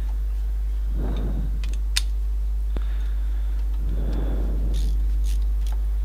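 A few light metallic clicks and two brief soft swells of noise as a brake caliper guide-pin bolt is fitted by hand and a socket wrench is put onto it, over a steady low hum.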